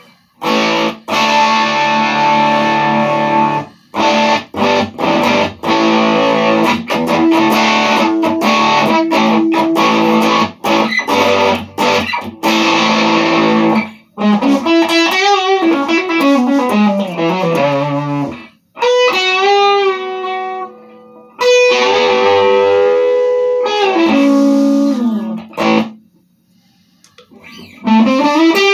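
Electric guitar played through the P.o.B T.W.D, a three-knob effects pedal, switched on. For about the first half it plays chords, stopped short again and again; then come single-note runs and long held notes with bends, and a short pause near the end.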